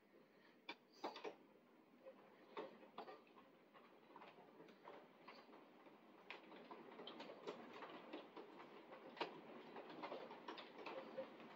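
Faint rain: irregular taps of raindrops striking the window glass and frame over a steady soft rain hiss. The taps come more often and a little louder from about six seconds in.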